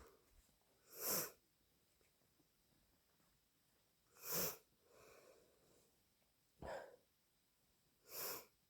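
Four short, noisy bursts of breath through a congested nose, a few seconds apart, from a person with a heavy head cold. A softer murmur follows just after the second.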